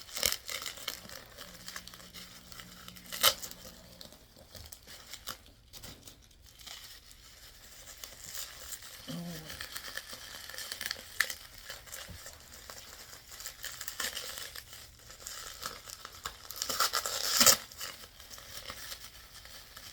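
Plastic bubble wrap crinkling and tearing as it is pulled off a package, with sharp crackles, the loudest about three seconds in and again near the end.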